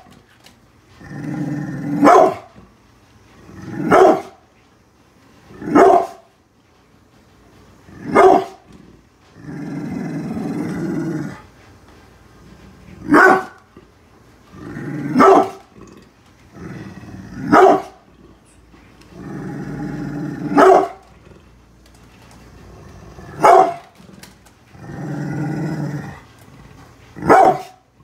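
Brindle pit bull growling low and barking, a rumbling growl of a second or two followed by one sharp bark, over and over about every two to three seconds. It is a territorial warning at strangers outside the house.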